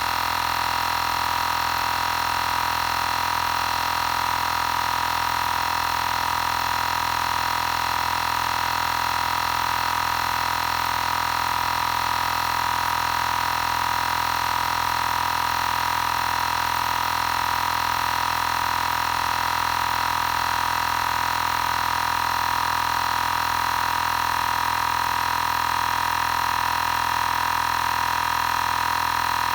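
Xiaomi Portable Electric Air Compressor 2 running steadily as it pumps air into a nearly flat spare tire. It makes an unchanging electric hum with one strong mid-pitched tone.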